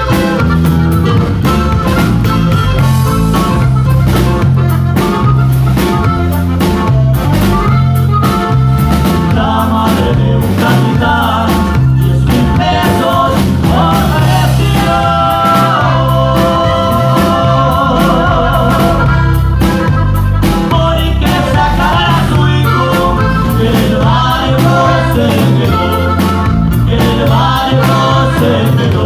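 Loud music with drums, bass and a singing voice, steady and unbroken.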